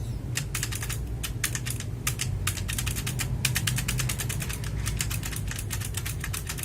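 Mechanical keyboard with clicky Otemu blue switches being pressed in quick succession, a fast run of sharp clicks with a few short pauses. The owner describes the switches as loose and wobbly in their housings.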